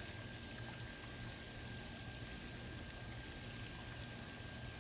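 Steady outdoor background noise: an even hiss over a low hum, with two faint steady high tones.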